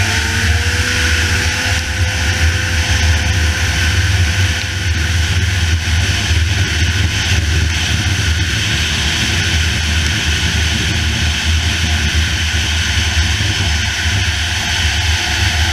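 Polaris snowmobile running steadily at speed, its engine and track heard from a camera on the hood, with wind rushing over the microphone.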